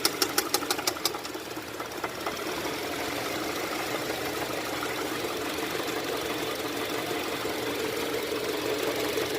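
Engine running with a rapid, even knock, about eight a second, that fades after about a second into steadier running. The mechanics take the knock for internal engine damage that calls for pulling and overhauling the engine.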